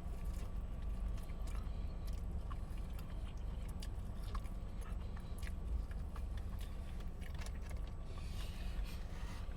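Soft chewing and small mouth clicks of someone eating a chicken wing, over a steady low hum inside a car.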